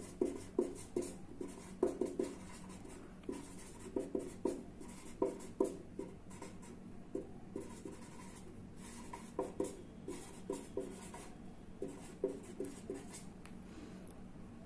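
Marker pen writing, in quick short strokes and taps with brief pauses between words.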